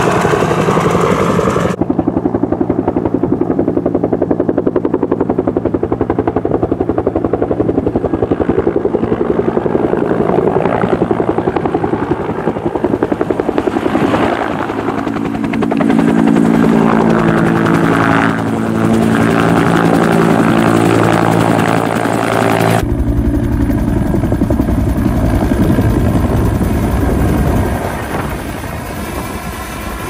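Firefighting helicopter flying close by, most likely a two-bladed Bell Huey-type machine: a rapid, even thumping of the rotor blades over a steady engine hum. The sound changes abruptly about two seconds in and again about three-quarters of the way through, and it is a little quieter near the end.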